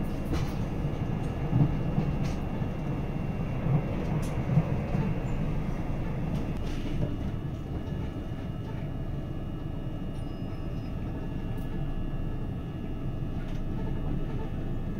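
Moving passenger train heard from inside the carriage: a steady low rumble of the running train, with a few sharper knocks in the first five seconds.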